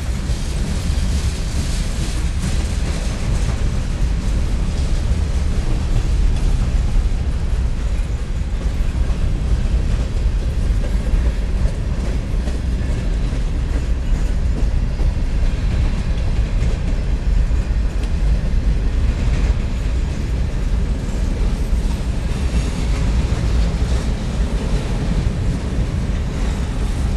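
Freight train of covered hopper cars rolling past close by, a steady low rumble of wheels on rails.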